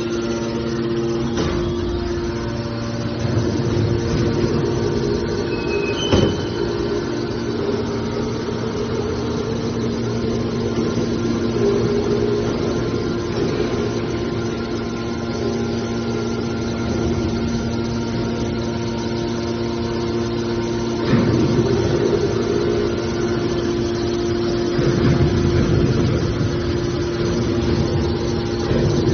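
Hydraulic scrap metal baler running, its pump and motor giving a steady drone, with a sharp metallic knock about six seconds in and rougher bursts of noise later on.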